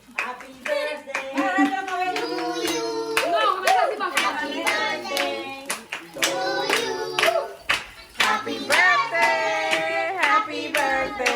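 A group of people singing a birthday song while clapping along in a steady beat.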